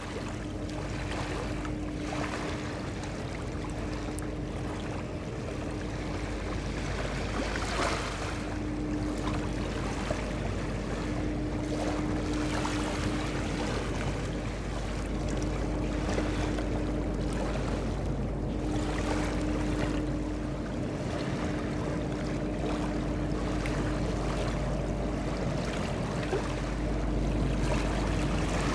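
Four-masted barque under engine power with sails furled, its engine heard as a steady distant hum that fades in and out, over wind on the microphone and river water washing at the shore.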